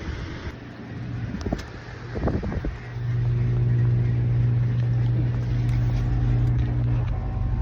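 A motor running with a steady low hum, starting about three seconds in, after a few brief knocks and scrapes.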